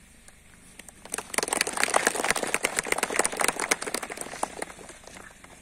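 A short round of applause from a small audience, starting about a second in and dying away after about three seconds.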